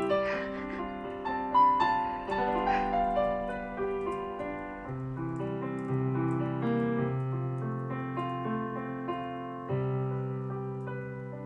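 Background piano music: a slow, gentle melody of sustained notes over low chords.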